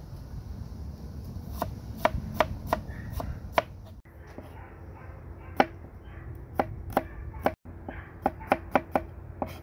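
Knife chopping on a cutting board, cutting up chicken gizzards: sharp, uneven strikes in short runs of two or three a second.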